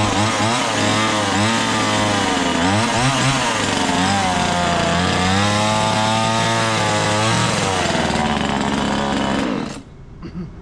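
Small 25cc two-stroke chainsaw running, its throttle revved up and back down to idle several times, then shut off abruptly near the end.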